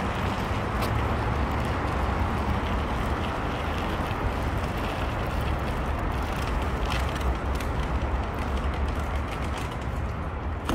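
Steady outdoor city ambience: a continuous low rumble and hiss, with faint light ticks scattered through it.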